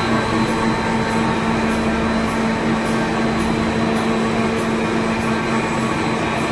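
Paper flexographic printing machine running steadily: a constant mechanical hum with steady tones and a regular high tick a little under twice a second.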